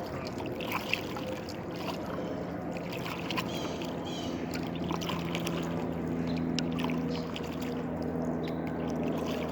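Water lapping and dripping around a kayak, with small knocks and clicks against the hull. A steady low hum comes in about halfway through.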